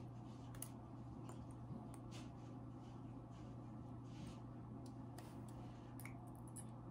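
Faint scattered clicks and soft handling noises of a needle driver and forceps working suture through a suture practice pad, over a steady low hum.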